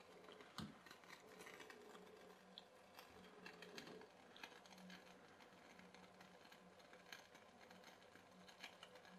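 Near silence: faint, irregular light ticks over a low steady hum. The pop-pop boat's boiler is still heating and not yet popping.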